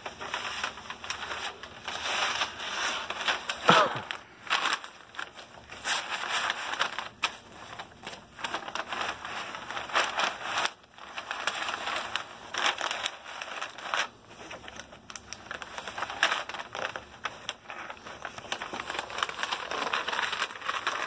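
A large sheet of paper crinkling and crackling as it is handled and stuffed into a backpack, with the backpack's fabric rustling. The crackles come in uneven bursts, with the sharpest one about four seconds in.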